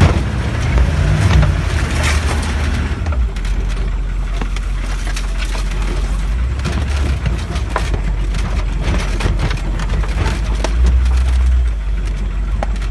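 Humvee's V8 diesel engine running under load as it drives over rough off-road ground, with the cab rattling and knocking, heard from inside the cab. The low rumble swells briefly near the start and again near the end.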